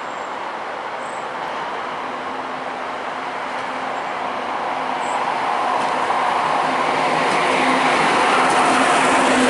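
A Class 91 electric locomotive hauling a Mk4 passenger train approaches, its rush of wheels on rail and a steady hum growing steadily louder toward the end.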